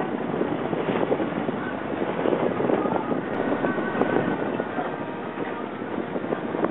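Boat running under way, with wind buffeting the microphone: a steady, rough rushing noise.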